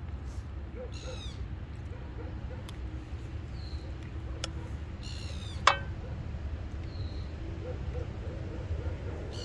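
Birds calling in high, falling call series, about a second in, around five seconds and again at the end, over a steady low rumble. A single sharp click of the spatula against the frying pan about five and a half seconds in, as a creamy mixture is stirred.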